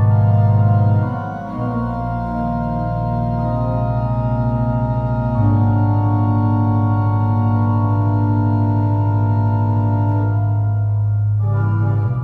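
Church organ playing slow, sustained chords over a strong held bass note. The chords change after a short dip about a second in, and the bass comes back louder with a new chord about halfway through.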